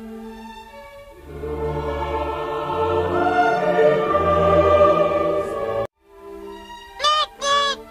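Soft background music, then about a second in a loud dramatic choir-and-orchestra swell in an opera style that runs some four seconds and cuts off abruptly. The gentle music comes back, and near the end come two short 'noot noot' honks, Pingu's beak sound.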